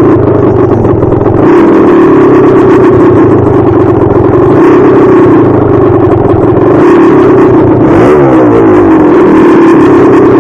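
A 440cc dirt bike engine running hard under load, very loud, its pitch rising and falling with the throttle. About eight seconds in it drops off briefly and then picks back up.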